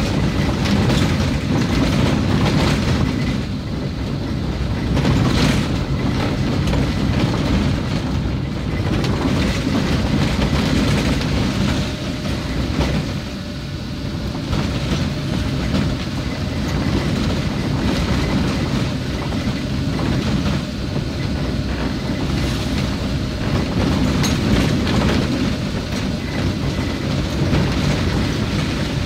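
Steady low rumble and rattle of a moving vehicle travelling over a rough, wet, unpaved road surface.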